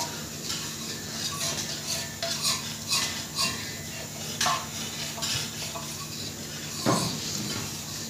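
Scattered light clinks and knocks of metal utensils over a steady low machine hum.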